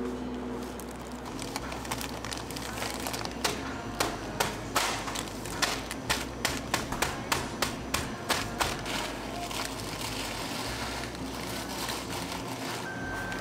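Wafer ice cream cones being smashed inside a plastic bag: a run of sharp knocks and crunches, several a second in the middle stretch. After that, rustling plastic and crumbling as the broken cone pieces are tipped into a plastic tub.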